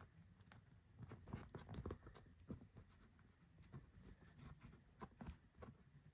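Faint, scattered small clicks and taps of a part being fitted by hand onto a shift-on-the-fly rotary selector switch.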